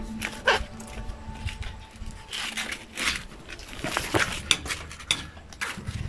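A dog barking a few times in short, separate calls.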